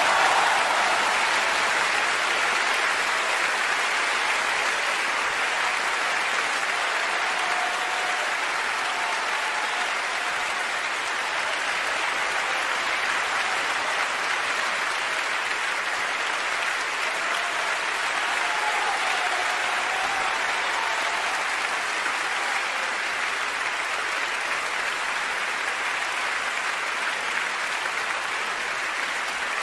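Large audience applauding a solo piano performance: a long, steady ovation, loudest at the start as the piece ends and easing off slightly.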